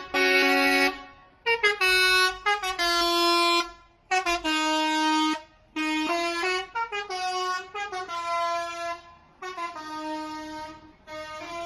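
A horn sounding a string of held notes that change in pitch like a tune, each lasting up to about a second with short breaks between them.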